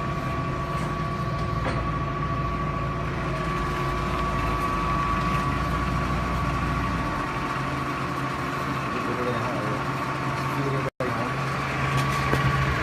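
Clausing 13 x 36 variable-speed engine lathe running with its power feed engaged: a steady gear whine over a low motor hum. About seven seconds in, the pitch of the hum shifts.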